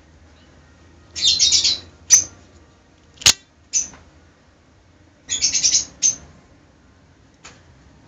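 Birds chirping in two quick flurries, about a second in and again about five seconds in, with a few single chirps between. A little over three seconds in comes one sharp metallic click, the blade of an out-the-front automatic knife snapping out and locking.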